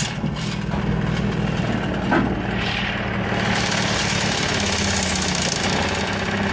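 Suzuki 15 hp oil-injection two-stroke outboard motor idling steadily in a test barrel, its cowling taken off partway through.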